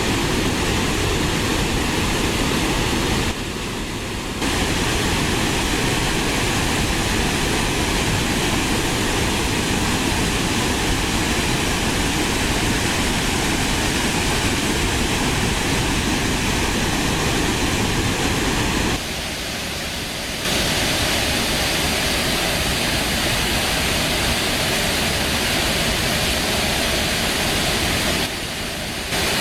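Waterfall rushing: a loud, steady noise of falling water, with brief quieter changes in sound about three seconds in, about two-thirds of the way through and near the end, where one shot of falling water gives way to another.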